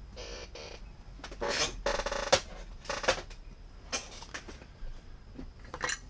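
Handling noise at a workbench: a run of short rustles and clatters as wires and small parts are picked up and moved, with one sharp click about two and a half seconds in.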